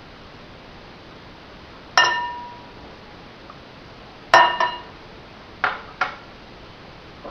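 Kitchen utensil knocking against a dish, five ringing clinks: one about two seconds in, then a quick pair and another pair. Typical of tapping ingredients off a spoon into a mixing bowl.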